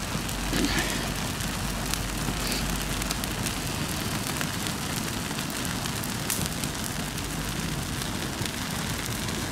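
A dried-out Christmas tree burning in open flames: a steady rushing hiss with frequent small crackles and pops from the burning needles and branches.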